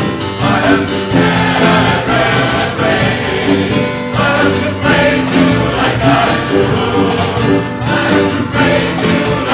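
A large choir singing live, with a percussion band drumming a steady beat along.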